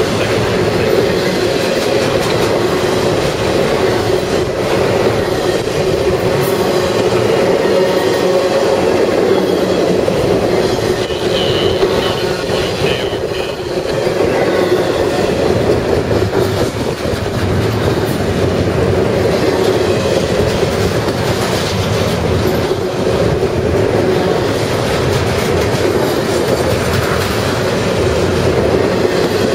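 CSX freight train's container well cars rolling past close by: a loud, steady rumble of steel wheels on rail. A faint high squeal comes through briefly around the middle.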